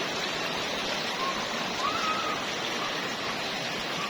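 River water rushing steadily over the riverbed, with a few faint, short calls over it.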